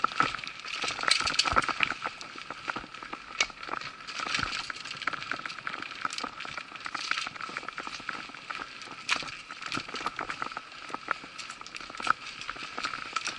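Mountain bike riding slowly over rough forest singletrack: a dense run of clicks and rattles from the bike jolting over roots, with tyres crackling over dry twigs and leaf litter.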